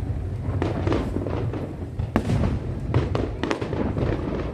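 Aerial fireworks bursting: several sharp bangs and crackles, the loudest about two seconds in, over a continuous low rumble of overlapping booms.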